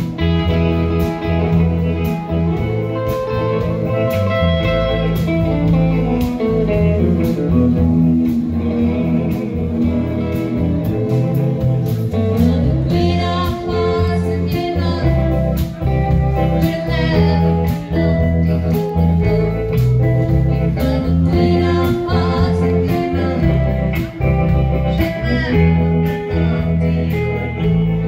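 A rockabilly band playing live: upright bass, electric guitar and drums over a steady beat.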